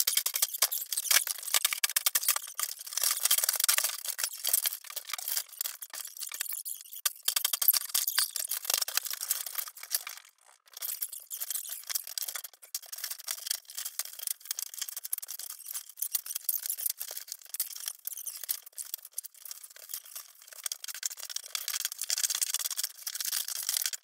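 Dense clatter and cracking of wood as a wooden cabinet is smashed apart with a sledgehammer and the broken boards are handled. The sound is thin, with no low end, and drops out briefly about ten seconds in.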